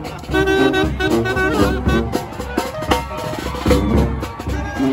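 New Orleans marching brass band playing jazz up close, with a saxophone carrying the tune over brass and drums.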